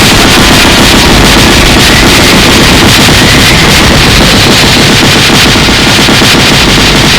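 Loud, unbroken barrage of rapid, overlapping punch and hit sound effects, coming too fast to count as separate blows.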